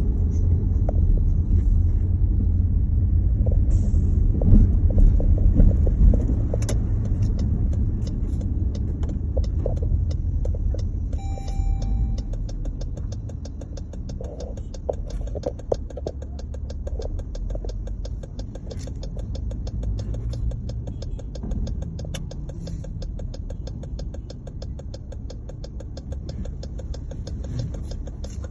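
Steady low rumble of a car on the move, strongest in the first half and easing off after about sixteen seconds, with a short high beep about twelve seconds in.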